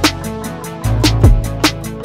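Background music with a steady drum beat and bass.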